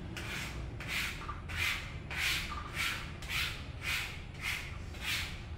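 A hand rubbing across wet window privacy film on glass in short, even strokes, about two a second, pushing out trapped air bubbles and water.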